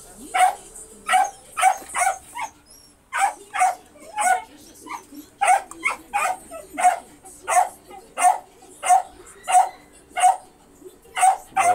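A dog barking over and over, short sharp barks about one and a half a second, with no let-up.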